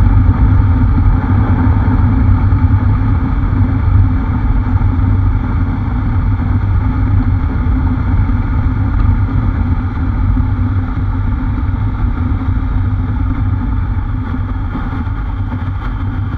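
Motorcycle riding at steady road speed from the rider's position: a continuous engine drone mixed with rushing wind, easing gradually toward the end.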